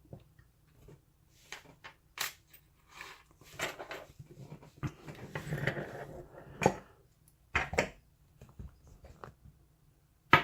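Scattered sharp clicks and knocks with short bouts of rustling and scraping: a lock and lock-picking tools being handled and set down, the sharpest knock near the end.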